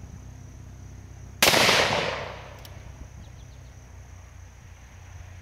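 A single .44 Magnum revolver shot from a Ruger Blackhawk about a second and a half in. Its sharp crack trails off into an echo over about a second.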